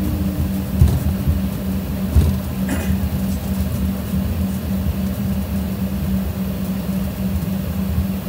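Cabin noise of an airliner taxiing: a steady low hum from the jet engines at idle and the rolling aircraft, with a couple of light thumps about one and two seconds in and a brief click shortly after.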